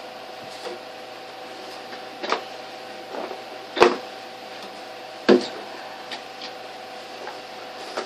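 A few knocks and bumps, three of them sharper, as a person moves about right next to the microphone. A steady low electrical hum runs underneath.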